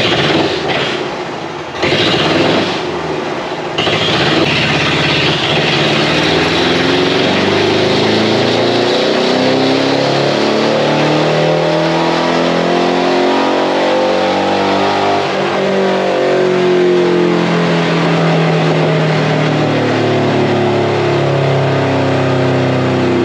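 Pickup truck's gasoline engine sputtering unevenly for the first few seconds, then catching and running steadily, revving up and back down several times under a dyno pull.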